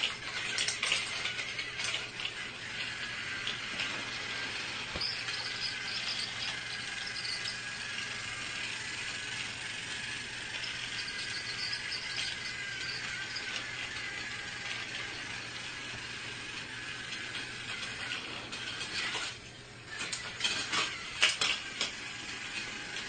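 Battery-powered toy train running, its small motor and gears whirring steadily, with clicks and clatter near the start and again near the end.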